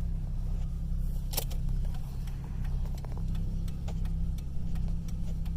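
Car road noise inside the cabin while driving: a steady low rumble, with scattered light clicks and rattles.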